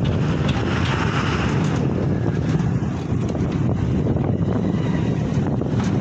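Steady rumble of a moving vehicle, with wind buffeting the microphone; a brief rise in hiss about a second in.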